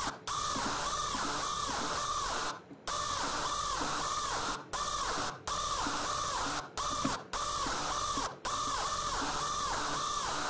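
Hardstyle screech lead played on the Xfer Serum software synth: a distorted, noisy synth tone held on sustained notes, its tone swept up and down by an LFO about twice a second. The notes cut off briefly several times between held notes.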